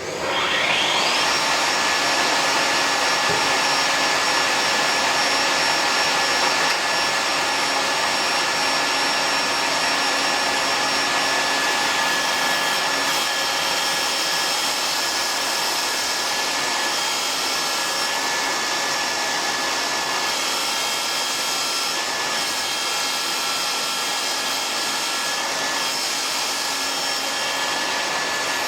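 Mafell Erika 85 saw motor switched on, its whine rising over about a second as the blade spins up, then running steadily at speed. A few seconds in, the level dips slightly and stays a little lower.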